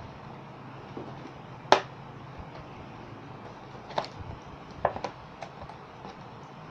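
Scissors snipping through a doll's cardboard box packaging: a handful of sharp, separate snips at uneven intervals, the loudest a little under two seconds in, over a steady low hiss.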